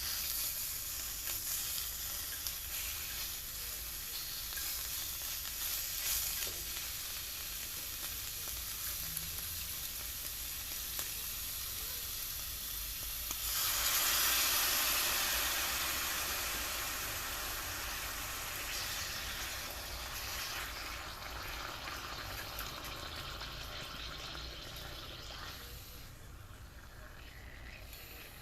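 Food sizzling in a small cast-iron skillet. About halfway through the sizzling suddenly gets louder, then slowly dies down.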